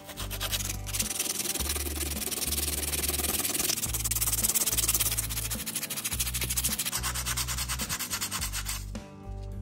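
Fast, even back-and-forth abrasive rubbing on a hardened melted-plastic repair, smoothing down the rough patch. It starts about a second in and stops shortly before the end, with background music underneath.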